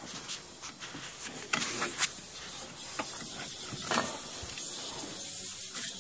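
Steady hiss of air and water spitting from the vent of a Spirovent air eliminator on a hot-water boiler system being refilled, with a few light knocks early on; the hiss comes up louder about a second and a half in. The leaking vent is spraying water.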